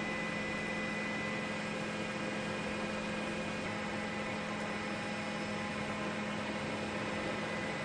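Steady hiss with a constant low hum and faint thin whines, without a break: the engine and rotor noise of a news helicopter, heard from inside it.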